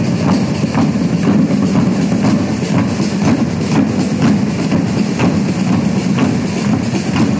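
A large corps of drummers playing side drums together: a loud, continuous drum cadence with sharp accented strokes standing out.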